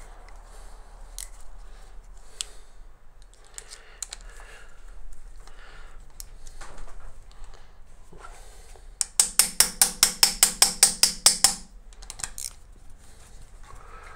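Light clicks and handling of metal hand tools, then, from about nine seconds in, a ratchet wrench clicking rapidly and evenly, about six clicks a second for some two and a half seconds, as a flange stud is run out of the cylinder head.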